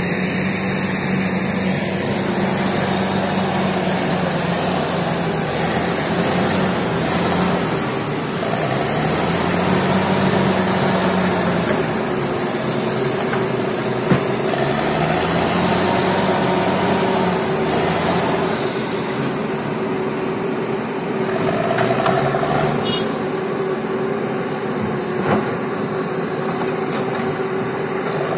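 Komatsu PC195LC crawler excavator's diesel engine running under working load, its note rising and falling every few seconds as the boom and bucket work brush and soil. A sharp knock sounds about halfway through and another near the end.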